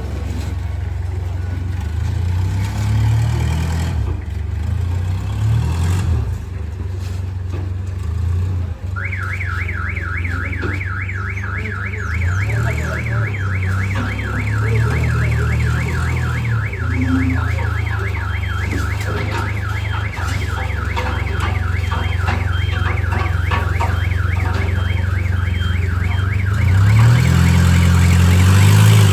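A vehicle engine runs with a steady low drone, its pitch shifting a little. About nine seconds in, a fast-warbling electronic alarm tone starts and keeps going alongside it.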